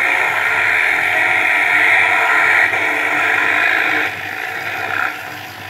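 Animatronic Santa-on-motorcycle toy running: a loud, steady whirring noise with little tune left in it. It drops in level about four seconds in and again near the end.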